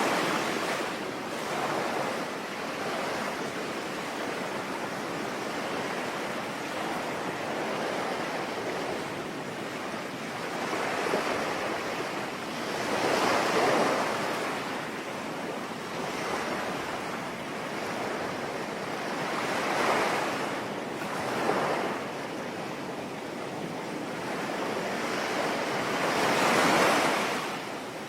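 Sea waves breaking and washing ashore, swelling up every six or seven seconds, over a steady hiss of rain.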